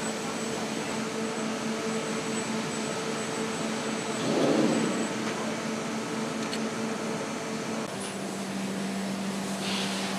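Steady hum and noise of foundry machinery, with two constant hum tones. A brief louder rush comes about halfway through. The hum steps slightly lower in pitch about eight seconds in.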